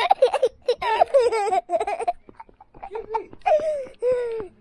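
A young boy laughing and giggling in a string of short, high-pitched bursts, with a brief lull about halfway through.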